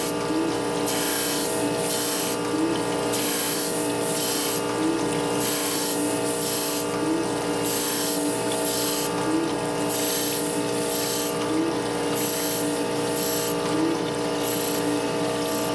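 Surface grinder wheel grinding hardened 62-66 Rc tool steel cam followers under a flood of coolant: a steady machine hum, with a high grinding hiss that comes and goes in short bursts as the wheel passes over the work, and a soft regular bump about every two and a half seconds.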